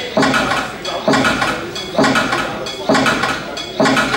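Soundtrack of a realtime demo: a looped sample, each hit sharp and then fading, repeating at an even beat about every nine-tenths of a second.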